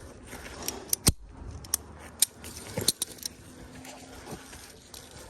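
Metal rigging hardware, such as carabiners and rings, clinking and clicking as it is handled: a string of separate sharp clinks, the loudest about a second in, and fewer toward the end.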